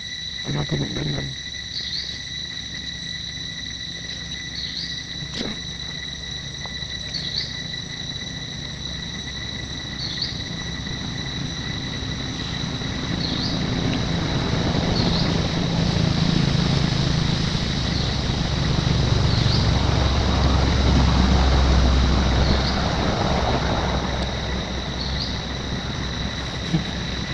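Forest insects droning steadily at a high pitch, with a short chirp repeating about every two and a half seconds. Through the middle, a louder low rumbling and rustling of handling noise rises and then fades.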